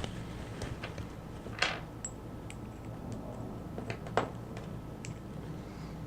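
Scattered small metallic clicks and taps of Master Lock 6835 lock parts being handled and turned during disassembly, two of them louder, about one and a half and four seconds in, over a steady low hum.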